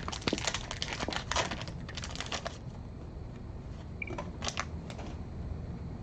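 Wax paper wrapper of a baseball card pack crinkling and tearing as it is opened. The crackles come thick over the first couple of seconds, then a few more about four and a half seconds in.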